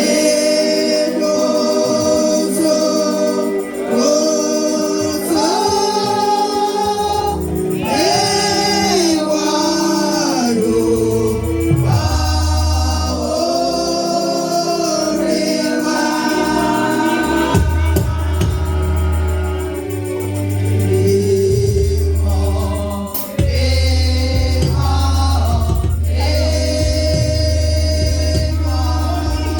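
Gospel choir singing with instrumental backing; a deep bass line comes in about seven seconds in.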